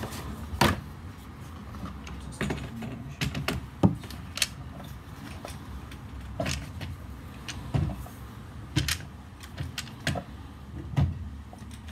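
Irregular clicks and knocks of a Stihl combi engine unit's plastic housing and loose parts being handled and set down on a wooden workbench.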